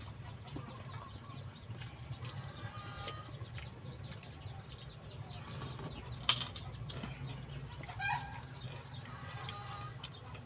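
Quiet eating sounds as noodles are slurped from plastic bowls, with one sharp click about six seconds in. Chickens cluck faintly in the background.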